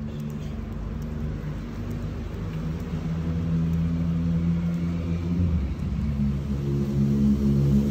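An engine running with a low, steady hum that grows gradually louder, its pitch shifting slightly a couple of times, then cutting off suddenly near the end.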